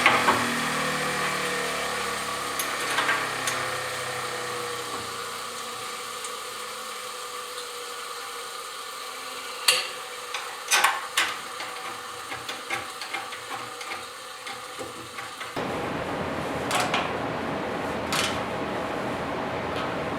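Bench buffing wheel running as small bolts are buffed, with a steady motor sound and a faint pitch sinking slowly over the first few seconds. A few sharp clicks come around the middle, and the running sound changes abruptly about three-quarters of the way through.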